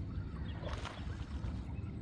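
Steady low rumble of wind buffeting the microphone, with a faint brief rustle or click about three-quarters of a second in.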